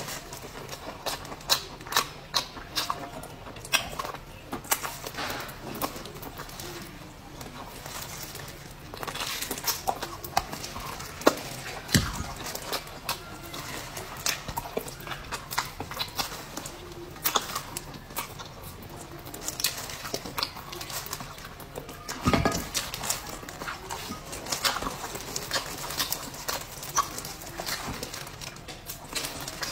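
Close-miked eating sounds: irregular chewing, biting and lip-smacking clicks, a few sharper bites standing out.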